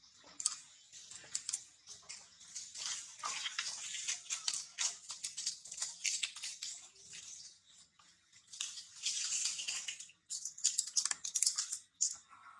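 Irregular crisp crackling and rustling of grass and leaves being pulled and picked at by a young macaque foraging, with a brief lull about ten seconds in.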